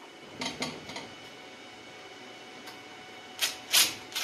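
Cordless impact driver on the bolts of a vintage Ski-Doo Rotax two-stroke engine: a few light metallic clicks, then two short bursts from the driver near the end.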